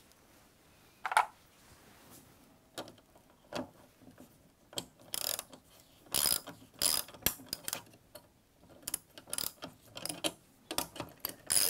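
Socket ratchet clicking as a bolt is tightened down, in repeated short runs of rapid pawl clicks as the handle is swung back and forth. A single sharp click comes about a second in.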